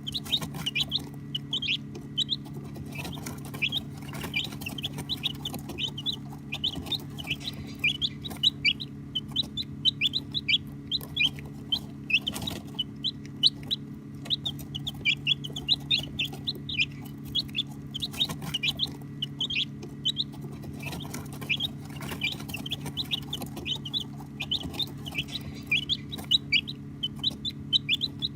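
A group of baby chicks peeping continuously: many short, high, downward-falling chirps a second, overlapping. A steady low hum runs underneath.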